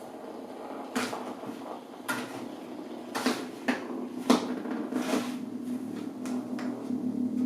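Hexbug Nano vibrating robot toy buzzing inside a box, a steady low buzz that starts about a second in. Over it come repeated sharp knocks and taps against the box.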